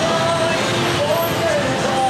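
Background music: a single gliding melody line over a dense, steady wash of noise.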